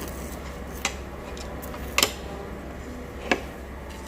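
Three short, sharp clicks a little over a second apart, over a steady low hum of room noise.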